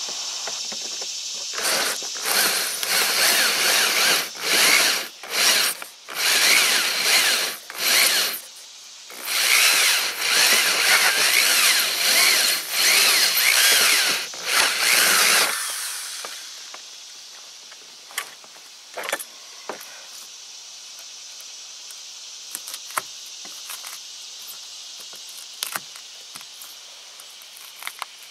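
Ryobi corded drill driving a 3.5-inch hole saw deeper into a plastic boat deck, in several bursts of a few seconds with short pauses, stopping about fifteen seconds in. After that, a few faint scrapes and clicks as the loosened material is dug out, over steady insect chirping.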